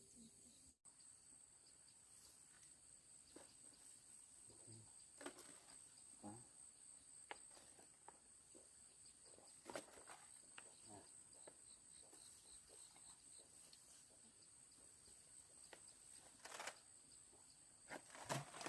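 Faint, steady high-pitched chirring of field insects such as crickets, with scattered soft rustles and taps now and then.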